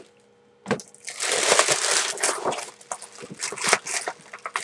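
Plastic packaging being handled: a single click a little under a second in, then a stretch of dense crinkling for about a second and a half, followed by scattered crackles.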